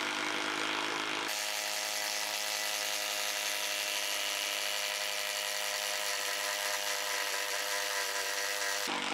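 Milwaukee M12 Stubby impact wrench running under load, its impact mechanism hammering steadily as it bores a large spade-type bit into pressure-treated lumber. The note shifts about a second in and changes again near the end.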